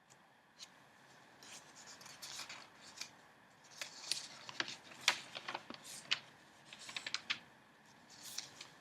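Paper of a newspaper flier rustling and crinkling as it is handled and flipped, with a run of sharp crisp snaps in the middle and a last rustle near the end.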